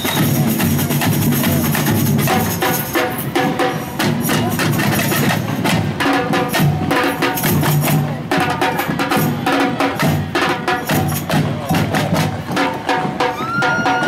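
A marching percussion band plays a fast, driving rhythm on large bass drums and snare drums, with closely packed drum hits throughout.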